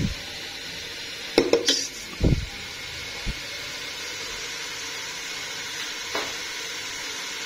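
Onion-tomato masala frying in oil in a pan, a steady sizzle, cooked to the stage where the oil has separated out on top. A metal ladle knocks against the pan a few times about a second and a half in, with a few duller thuds after.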